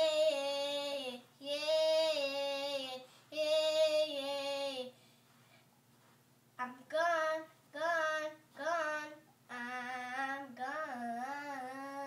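A young boy singing unaccompanied: three long held-note phrases, a pause of about two seconds, then three short sung syllables and a longer wavering phrase near the end.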